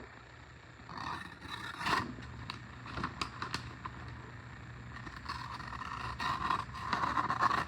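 Victorinox Swiss Army knife blade scraping over a hard Arkansas sharpening stone in repeated strokes, with a few separate strokes early on and a quicker run of strokes over the last few seconds.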